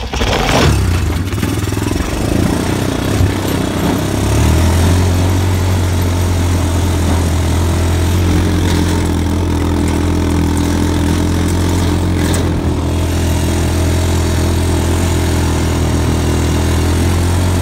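ATV engine running steadily under the rider as the quad is driven across grass, its pitch stepping up about four seconds in and then holding.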